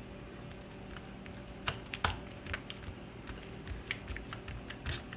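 Ghee-greased hands pressing and stretching feteer dough thin on a work surface: irregular soft taps and clicks, one of the sharpest about two seconds in, over a faint steady hum.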